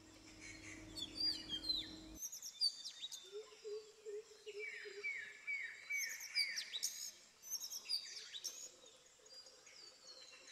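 Several birds chirping and calling, with overlapping high chirps throughout. There is a quick run of lower notes about three seconds in and a run of five falling notes about four and a half seconds in.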